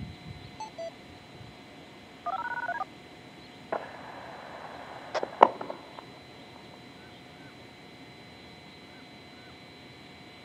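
A short burst of paired beeping tones in the style of DTMF signalling, the kind of radio tones that activate outdoor warning sirens. Then a click and about two seconds of radio hiss, with a sharp louder click partway through, before only faint background hiss remains.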